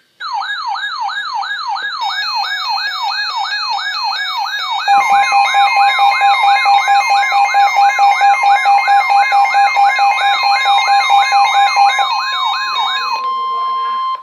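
Electronic emergency alert siren: a rising pitch sweep that repeats about two and a half times a second. About five seconds in, a steady alert tone joins it, and the tone sounds alone for the last second. These are the attention tones that open a weather radio severe thunderstorm warning.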